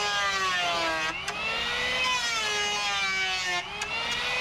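Handheld electric power planer running as it shaves the edge of a wooden beam, a steady motor whine that sags in pitch about a second in and again near the end, then recovers.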